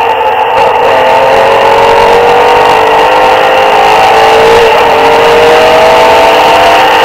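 Porsche 993 RS's air-cooled flat-six engine heard from inside the cabin, running loud under load as the car accelerates. Its pitch climbs steadily from about a second in to the end.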